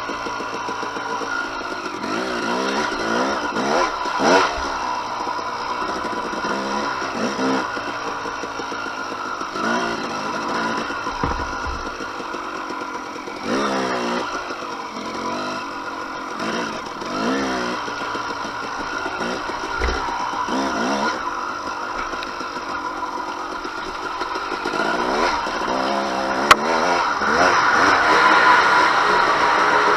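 Single-cylinder two-stroke engine of a 2007 KTM 250 XC-W dirt bike being ridden, its pitch rising and falling again and again as the throttle is opened and closed. There is a single sharp click about three-quarters of the way through, and the engine grows louder near the end.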